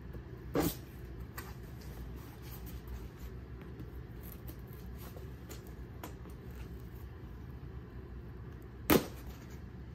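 Cardboard box being cut open along its taped seam with a small cutter: faint scratching and crackling of tape and cardboard, with two sharp clicks, one just after the start and one near the end.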